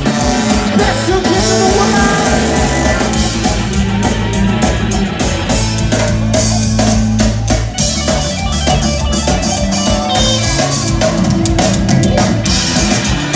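A ska-punk band playing live and loud, with drum kit and electric guitar driving steadily.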